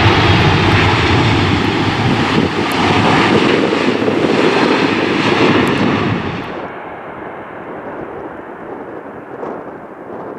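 Boeing 747 freighter's four jet engines running loud as it touches down and rolls out, a steady deep rushing noise. About six and a half seconds in it drops abruptly to a much quieter rumble.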